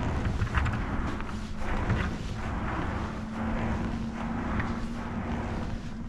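Wet crab-trap rope being hauled hand over hand over the tube of an inflatable dinghy, a soft swish about once a second. Wind rumbles on the microphone throughout, with a steady low hum.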